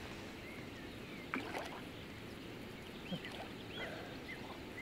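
Quiet outdoor ambience: a steady soft hiss with a few short, faint bird chirps and one light click about a second and a half in.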